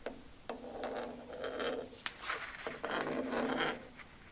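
Pencil scratching on an oak block as it traces around the edge of a paper template, in a few long strokes.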